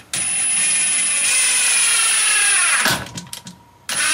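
Cordless driver drill driving a coarse-thread wood screw into a timber plank at clutch setting 2. The motor whine runs steady, then drops in pitch as the screw bites and stops just before three seconds in. A few short clicks follow, and the drill starts up again near the end.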